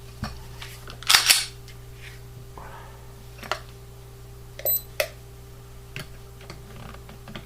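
Mechanical clacks and clicks from a Glock 43 pistol being worked for a trigger pull test with an electronic trigger pull gauge: a louder double clack about a second in, then a few short sharp clicks spread through the rest, as the trigger is reset and pulled until it breaks.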